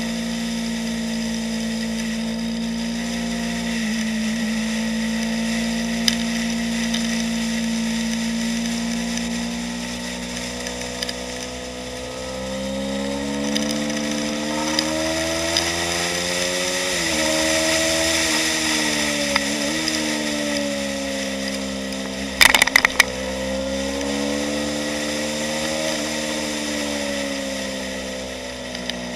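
2015 Yamaha YZF-R3's parallel-twin engine, heard from a camera mounted on the bike on track. It holds a steady pitch for about twelve seconds, then revs up with two brief drops in pitch as it shifts up, and falls away towards the end. There is a short cluster of loud knocks about two-thirds of the way through.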